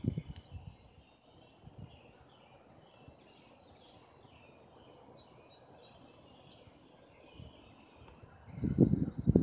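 Songbirds calling in a dawn chorus, many short chirps and trills overlapping. A low thump comes at the start, and a louder run of low rumbling thuds near the end.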